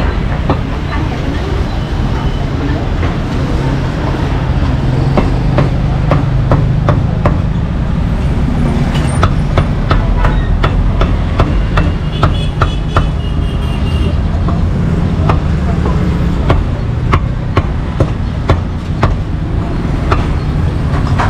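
Meat cleaver chopping roast meat, a long run of quick, irregular chops, over a steady low rumble of street traffic.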